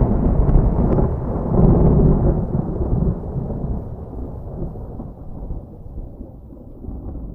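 Thunder rumbling after a lightning strike, with a few sharp crackles near the start and a second swell about two seconds in, then a long low rumble fading away.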